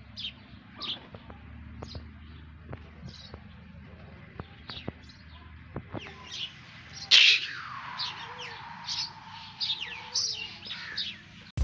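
Small birds chirping: short high chirps repeating about every half second, busier and louder in the second half, with one louder burst about seven seconds in.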